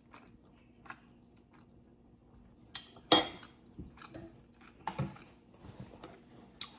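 Close-miked chewing of a mouthful of rice, beans and stewed beef, with a few sharp clinks of a metal spoon against the plate, the loudest a little after three seconds in.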